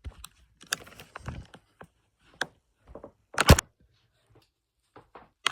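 Scattered clicks and light knocks of small objects being handled, with one louder thunk about three and a half seconds in.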